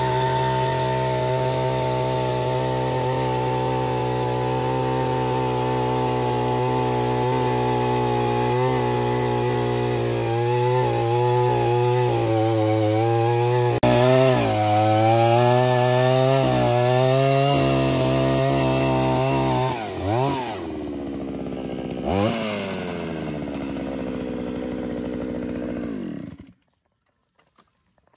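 Takyo TK3P earth auger's 82cc single-cylinder two-stroke engine running steadily while the auger bores into soil. Midway the engine's pitch wavers as it digs, then two brief revs rise and fall, and it settles before the sound cuts off near the end.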